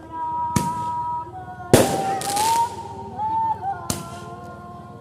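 Fireworks going off: four sharp bangs spaced about a second apart, each with a brief echoing tail.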